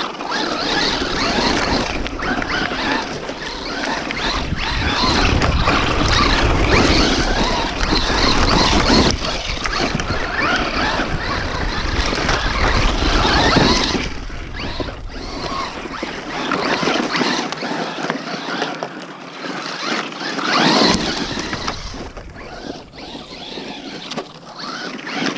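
Traxxas Rustler 4x4 VXL RC stadium truck's brushless motor running and its tyres throwing dirt as it drives and slides on a dirt track. The noise swells and fades as the truck passes near and away.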